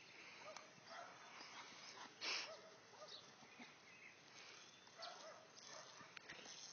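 Faint sounds of a dog chasing and snapping at the spray from a garden hose, with a short, louder hiss about two seconds in.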